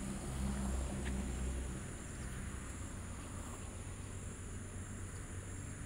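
Faint outdoor ambience: a steady high-pitched insect chorus, with a low rumble during the first two seconds.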